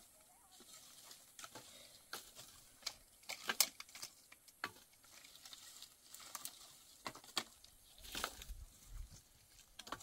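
Dry branches and twigs crackling, snapping and rustling as they are picked up and stacked onto a pile of firewood, in scattered sharp clicks, the loudest about three and a half seconds in. About eight seconds in, a louder rustle with a low thud.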